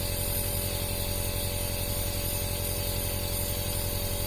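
Compressor nebulizer running steadily: its small piston pump makes a fast, evenly pulsing hum with a hiss of air, atomizing medicine into mist for inhalation.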